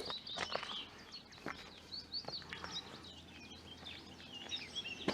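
Small birds singing in a marsh: rapid, scratchy chirping phrases from more than one bird, with a few light knocks.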